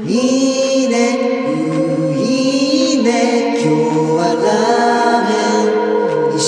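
Music with sustained, chant-like singing voices holding long notes that slide between pitches.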